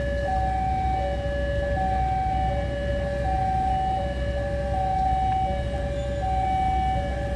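Railway level-crossing warning alarm sounding while the crossing is closed for an approaching locomotive: an electronic two-tone signal alternating evenly between a higher and a lower note, each held about three-quarters of a second, over a steady low rumble.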